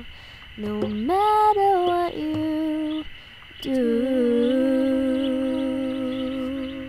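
Song outro: a wordless vocal melody, a rising phrase about a second in, then a long held note, over soft accompaniment.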